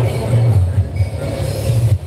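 Deep, loud bass from a sound horeg loudspeaker system, pulsing about twice a second.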